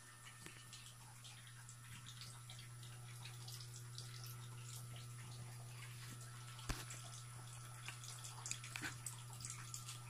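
Low steady hum with scattered faint ticks and clicks, and one sharper click about two-thirds of the way in.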